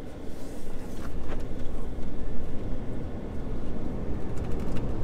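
Low, steady road and tyre rumble inside the cab of a 2022 Ford F-150 Lightning electric pickup on the move. There is no engine note, only the rumble, with a few faint clicks near the end.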